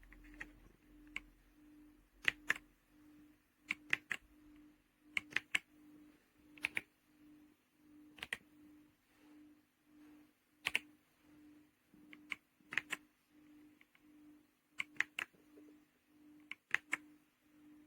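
Keys of an RK Royal Kludge R75 mechanical keyboard with silver switches being pressed one or two at a time, a sharp clack every second or so, often in quick pairs. Under it a faint low hum pulses about one and a half times a second.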